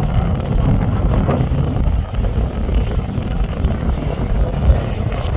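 Aircraft engine noise, steady and loud, with most of its weight in the low end.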